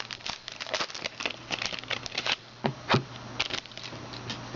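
Trading cards and their plastic wrapping being handled: irregular crinkles and small clicks, with one louder tap about three seconds in, over a faint steady low hum.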